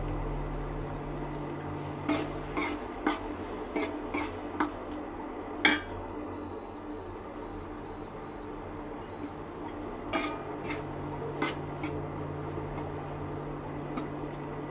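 Kitchen pots and utensils clinking in a scattered series of sharp knocks over a steady low hum. The hum stops a few seconds in and comes back about ten seconds in, and a run of six short high beeps sounds between them.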